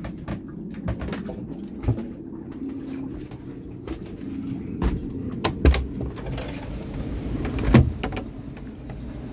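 Scattered knocks and clicks of someone moving about aboard a sailboat, the loudest a little before six seconds and near eight seconds, over a steady low rumble.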